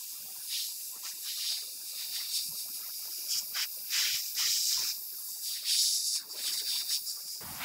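Gravity-feed airbrush spraying paint: a high hiss that swells and eases in short surges.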